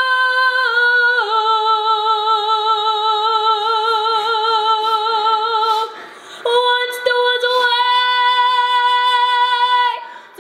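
A young girl singing a cappella in long, held notes with vibrato. The first note steps down a little about a second in. After a short break a second long note follows.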